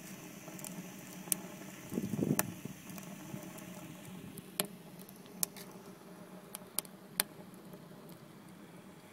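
Wood fire burning in a rocket stove's feed tube, crackling with scattered sharp pops over a steady low rushing noise. A brief low rustle comes about two seconds in.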